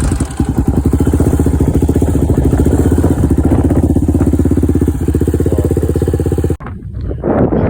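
2006 Polaris Outlaw 500 ATV engine running at a steady speed with an even, quick beat. It cuts off abruptly near the end, leaving wind noise on the microphone.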